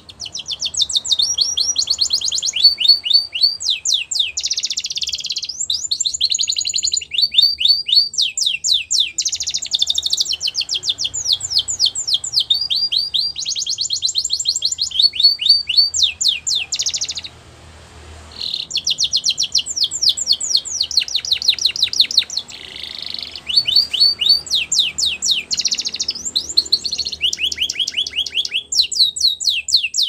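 Domestic canary singing a long song of fast trills, each a quick run of the same note repeated, switching from one trill to the next, with a short pause about seventeen seconds in.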